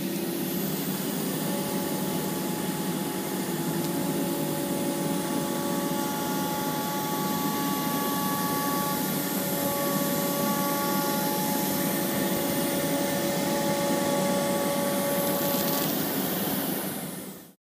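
CNC router's HSD spindle cutting a black HDPE plastic sheet with an end mill: a steady machine noise with several steady whining tones over it, cutting off abruptly near the end.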